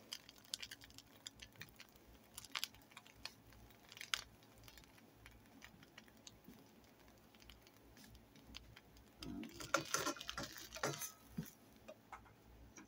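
Faint, scattered crackling of buttered bread frying slowly in a nonstick pan. About ten seconds in, a plastic slotted spatula scrapes against the pan and knocks as it slides under a slice and turns it.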